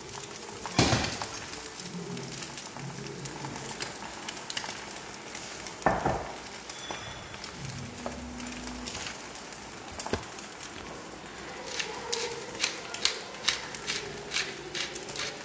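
Two eggs frying in olive oil in a stainless steel pan, sizzling steadily, with a few sharp clicks. From about three seconds before the end, a wooden pepper mill grinds over the pan in a quick run of clicks.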